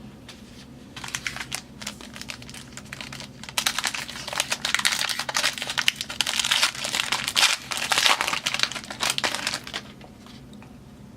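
Foil wrapper of a trading card pack crinkling and tearing as it is opened, in irregular crackly bursts starting about a second in, busiest through the middle and later part, and stopping shortly before the end.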